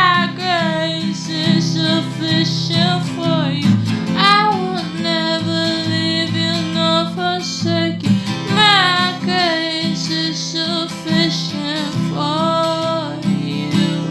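Song with acoustic guitar accompaniment and a female voice singing long held notes without words.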